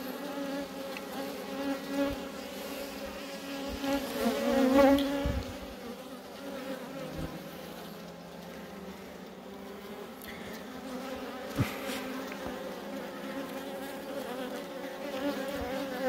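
Honey bees buzzing around an open hive frame of a small nucleus colony: a steady, many-voiced hum that swells louder and wavers for a moment around four to five seconds in.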